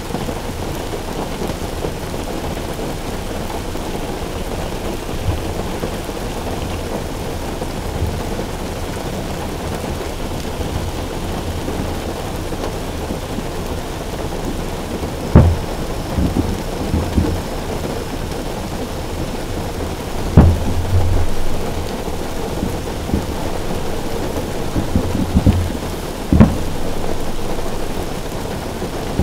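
Steady rain falling on a car roof, with three loud firework shell bursts about five seconds apart in the second half. Each burst is followed by a rolling rumble, and smaller thuds come in between.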